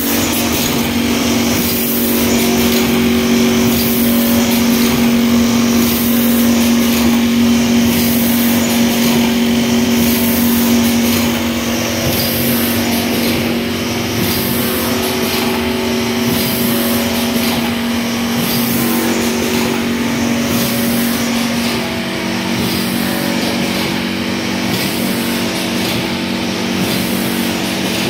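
Fully automatic woven polypropylene sack cutting and stitching machine running, a steady loud machine hum with a regular cycling beat about once a second. The hum drops slightly in pitch about 22 seconds in.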